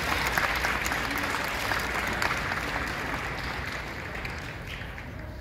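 Audience applauding: a dense patter of many hands clapping that dies down near the end.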